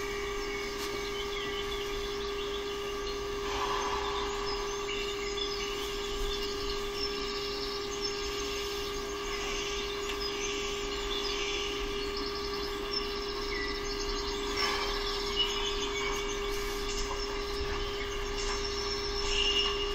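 A steady hum throughout, with scattered short high chirps over it and a few soft knocks.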